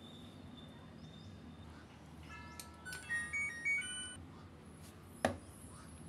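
A short electronic tune of stepped beeps lasting about two seconds, starting a little after two seconds in. Near the end comes a single sharp click as the plastic door lock switch is handled.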